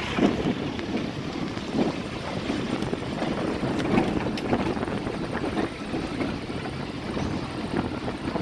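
Vehicle driving over an unpaved dirt farm road, heard from on board: a steady rumble of engine and tyres, with irregular knocks and rattles as it goes over bumps.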